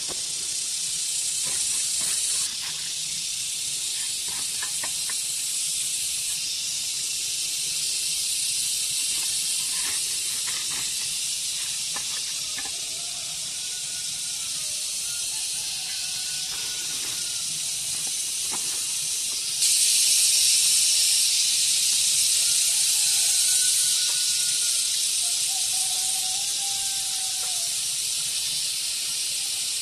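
Steady high-pitched insect chorus, cicadas, that steps up louder about twenty seconds in. A few faint short bird calls and soft scrapes of hands and a trowel working dry soil come through underneath.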